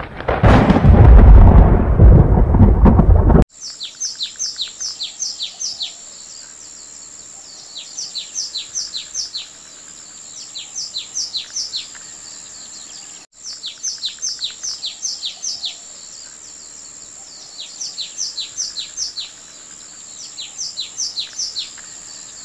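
A loud thunderclap and rumble that cuts off abruptly about three seconds in. Then birdsong follows: phrases of quick, downward-sliding whistled notes repeat every two to three seconds over a steady high-pitched hum.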